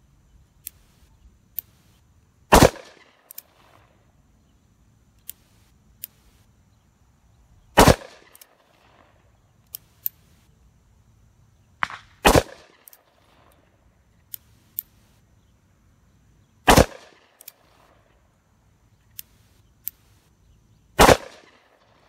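Five .357 Magnum shots from a Magna-ported Smith & Wesson Model 13 revolver, fired about every four and a half seconds, each a sharp crack with a short echo. Faint clicks come between the shots. The ported barrel gives a blast that the shooter finds louder, with more percussion to the rear.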